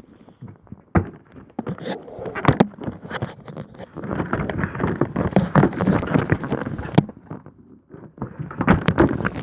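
Plastic door-trim panel and its clips being pried and worked loose with a screwdriver: a busy run of clicks, knocks and scraping, with a short pause near the end before more clicking.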